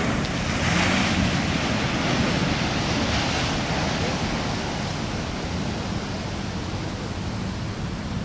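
Heavy ocean surf breaking and rushing in a continuous roar, with wind buffeting the microphone. It swells about a second in and eases off gradually over the last few seconds.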